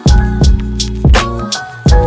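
Background music: a hip-hop / R&B style track with a steady drum beat and sustained bass and keyboard notes.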